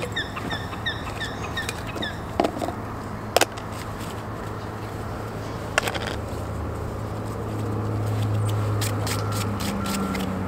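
Riverside ambience with a bird calling in a quick run of chirps for the first second or so. A few sharp clicks come as plastic containers and tackle are handled, over a steady low mechanical hum that swells in the last few seconds.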